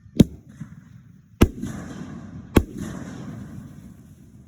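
Fireworks bursting: three sharp bangs a little over a second apart. The later two are followed by a few seconds of crackling and rumble.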